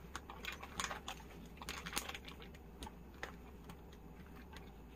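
Faint, irregular light clicks and rustling from a bag strap and its buckle being handled and adjusted to lengthen it, the sharpest click about two seconds in.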